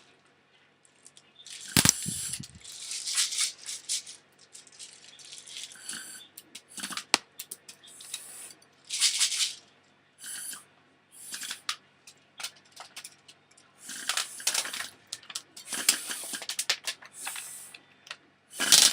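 Airsoft BBs rattling inside a medicine bottle as it is handled and shaken, in irregular bursts with short pauses between them.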